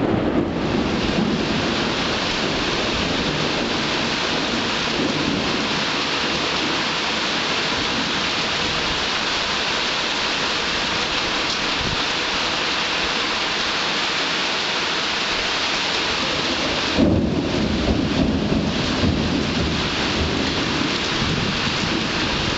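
Steady heavy rain hissing throughout. A rumble of thunder fades away in the first second, and about 17 seconds in a sudden loud thunderclap breaks and rolls on to the end.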